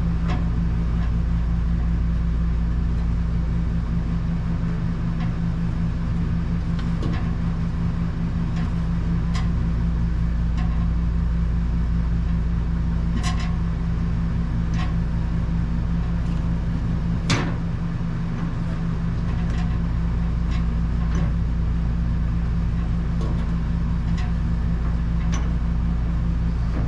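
Steady low machine hum with an even level throughout, and a few scattered light clicks and knocks, the sharpest about 13 and 17 seconds in.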